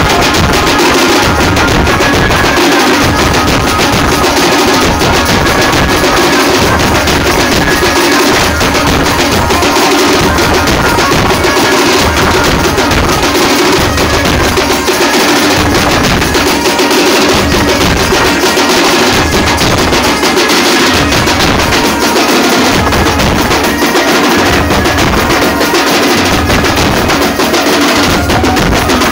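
Band-party drum section playing loudly: several snare drums beaten in rapid, unbroken strokes, with a large bass drum struck by a padded beater underneath.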